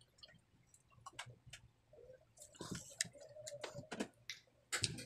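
Close-up eating sounds: sips and swallows of water, then scattered wet clicks and squishes as fingers work rice in chicken afritada sauce, with a louder cluster of clicks near the end.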